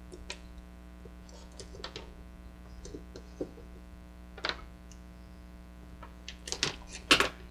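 Steady mains hum, with scattered light clicks and rustles from hookup wire being handled and bent into place. A few sharper clicks come near the end.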